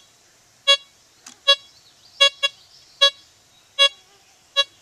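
Blisstool LTC64 metal detector beeping on a small belt buckle buried about 18.5 inches below the raised search coil. It gives seven short, buzzy beeps of one pitch, roughly one every three-quarters of a second, one for each pass of the coil over the target.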